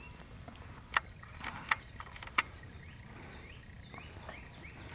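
Golden retriever puppies playing: a few sharp clicks in the first half, then a run of faint, short, high squeaks near the end.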